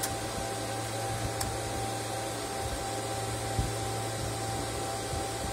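Steady whir of cooling fans in rack-mounted radio amplifier and power-supply units, with a low hum and a faint steady high whine.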